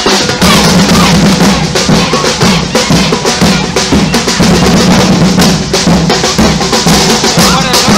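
Loud, fast drumming: bass drum and snare beating a dense, unbroken rhythm.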